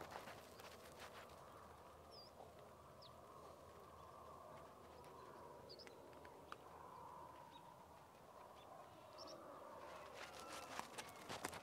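Faint outdoor rural background with a few short, high bird chirps scattered through it, and a cluster of small clicks near the end.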